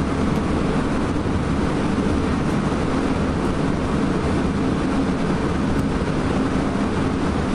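Odakyu 2000 series electric train running at speed, heard from inside motor car DeHa 2407: a steady, even running noise of wheels, track and traction gear.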